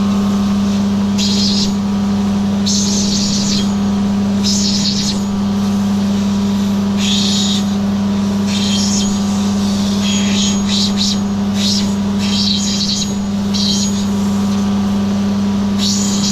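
Opal-grinding machine's electric motor humming steadily, with a dozen or so short, irregular bursts of gritty hiss as the opal is pressed against the water-fed grinding wheel.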